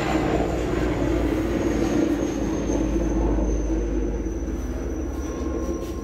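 Helicopter flying overhead: a steady low rumble with a thin high whine slowly falling in pitch, fading out over the last couple of seconds as it moves away.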